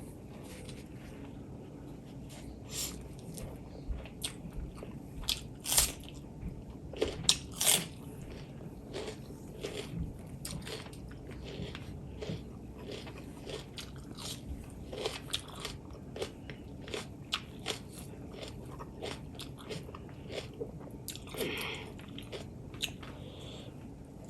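A person chewing and biting food close to the microphone: a steady run of irregular sharp clicks and crunches, with a few louder bites about six to eight seconds in.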